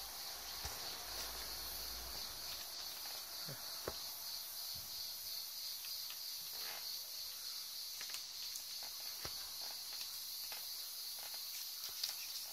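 Steady high-pitched insect chorus, with faint scattered ticks and rustles of hands pressing an adhesive repair patch onto the vinyl of an inflatable pool.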